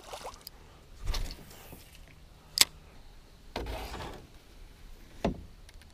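Fishing gear being handled in a canoe: scattered knocks and rubbing against the hull, with one sharp knock about two and a half seconds in, a rustle a second later, and another knock near the end.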